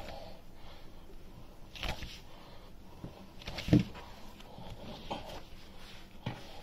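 Bread dough being kneaded by hand on a worktop: soft thumps and squishes as the dough is folded and pressed down, about four times, the loudest just past the middle. The dough is being worked to build its gluten until it is smooth and even.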